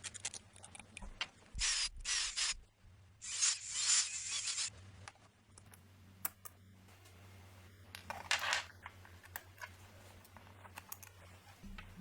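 Small metal tool parts being worked on by hand: light clicks and knocks, broken by three short hissing bursts, about two seconds, four seconds and eight seconds in.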